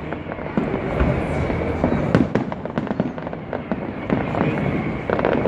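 Fireworks show: a rapid, continuous series of bangs and crackling bursts, one overlapping the next.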